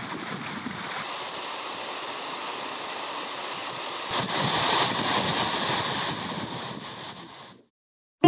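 Rushing water with wind buffeting the microphone, a steady noisy wash that swells about four seconds in and then fades out near the end.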